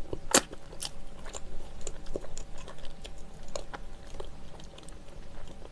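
Close-miked chewing of a soft, chewy bread filled with sticky glutinous rice cake and red bean, with wet mouth clicks and smacks scattered through.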